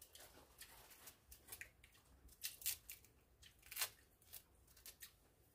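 Small knife scraping and peeling the skin off a fresh deodeok root (Codonopsis lanceolata) in a series of short, faint, irregular rasping strokes.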